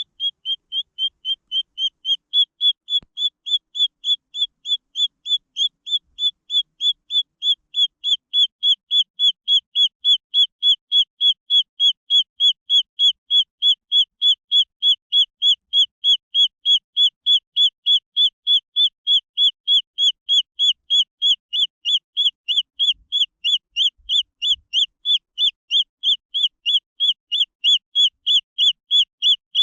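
Green junglefowl chick peeping: a long, very even series of short, high peeps, about three a second.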